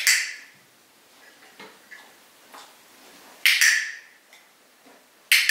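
Dog-training clicker clicking three times: once at the start, again about three and a half seconds in, and once near the end. Each sharp click marks the dog stepping into its bed, the behaviour to be rewarded with a treat.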